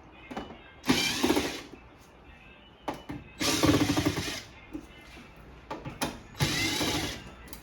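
Handheld power drill or driver run in three short bursts of about a second each, the motor pitch bending a little within each run.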